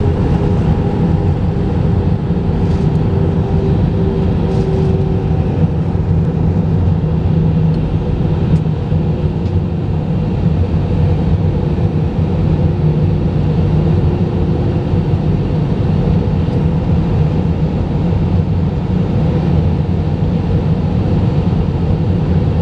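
Steady cabin noise inside an Airbus A319 airliner in flight, heard from a window seat over the wing: an even rush of airflow and jet-engine drone, heaviest in the low end, with a faint steady tone that fades in and out.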